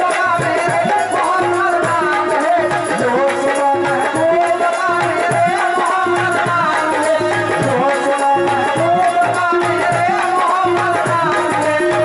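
Qawwali music: a harmonium melody over steady dholak drumming, with a man singing long held notes.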